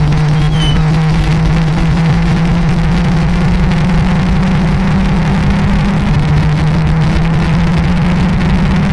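Loud, steady, low-pitched siren drone with a heavy, distorted rumbling noise over it, held unchanged without rising or falling.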